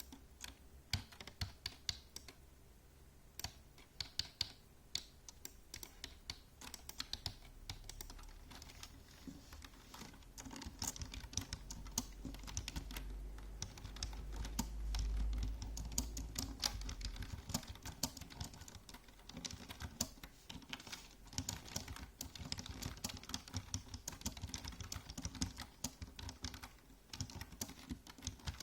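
Typing on a computer keyboard: irregular runs of keystroke clicks with short pauses. A low rumble swells in the middle and then fades.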